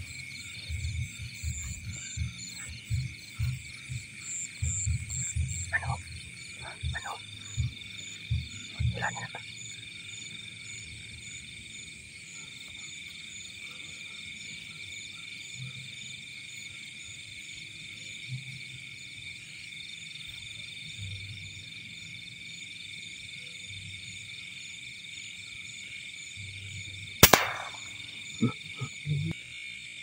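Night chorus in a flooded rice paddy: frogs croaking in rapid low pulses for the first ten seconds, over a steady high trill of insects. About 27 seconds in comes a single sharp crack of a PCP air rifle shot, the loudest sound, followed by a few quick clicks.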